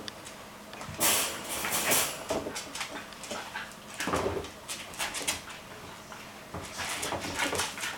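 A Scottish terrier puppy playing with a green chew toy on a hardwood floor: irregular scrabbling and knocks of claws and toy on the wood, with brief puppy sounds.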